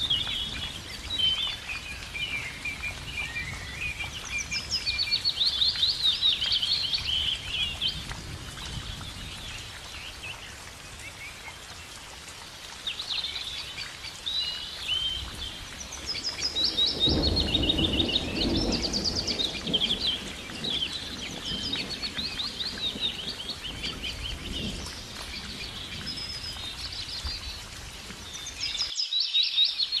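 Several songbirds singing at once, fast trilled and chirping phrases over a soft steady hiss. A low rumble rises for a couple of seconds around the middle, and the sound drops out briefly near the end.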